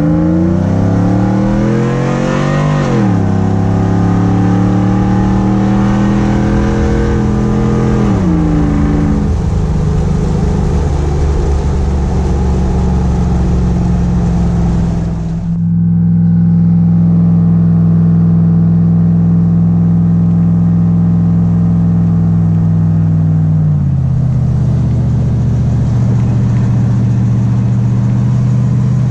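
Swapped 6.0-litre V8 in a Chevy Silverado, with a Texas Speed 223/226 cam, Kooks headers and a Borla XR-1 muffler, accelerating through the gears: the engine note climbs, drops at an upshift about three seconds in, climbs again and drops at a second shift around eight seconds, then settles into a steady cruise. After a cut it runs steadily at cruise, the pitch stepping down once more about five seconds before the end.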